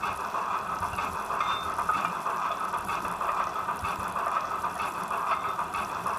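Zimo MX645R sound decoder in a Roco model of the DB BR 18 201 steam locomotive, playing steam locomotive running sounds through the model's small speaker: a steady hiss with faint ticks.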